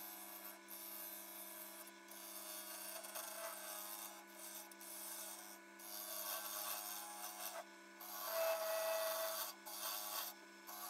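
A spindle gouge cutting an apple-wood blank spinning on a Record Power Coronet Herald wood lathe: a scraping cut that stops briefly several times as the tool comes off the wood, over the lathe's steady motor hum. The cut is loudest for a moment near the end.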